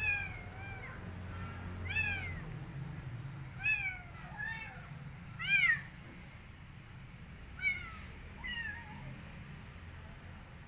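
Ginger kitten meowing again and again: about eight short, high meows that rise and fall in pitch, spaced roughly a second apart, the loudest about halfway through and the last ones a little before the end.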